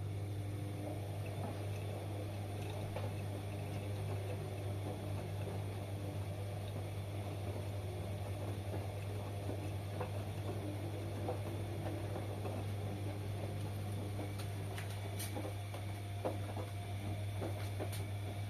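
Washing machine running a wash, water sloshing and swishing in the drum over a steady low hum, with a few faint clicks near the end.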